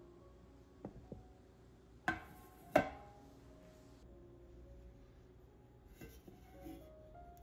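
Two sharp knocks of kitchenware on a wooden board, about two and three seconds in, with a few lighter knocks just before, over soft background music; near six seconds there is brief light handling of the metal springform pan.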